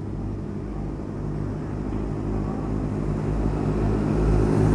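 Motor vehicle engines running steadily, getting louder toward the end as the vehicles approach.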